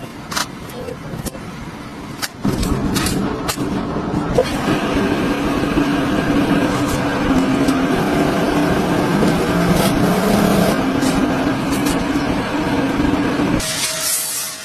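A motor running steadily with a humming tone. It starts about two seconds in, after a few sharp clicks and knocks, and cuts off suddenly near the end.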